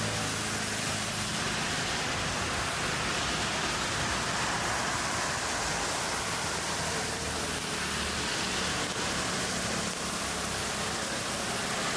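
Steady city traffic noise: a continuous rush of tyres and engines, with a low engine hum underneath.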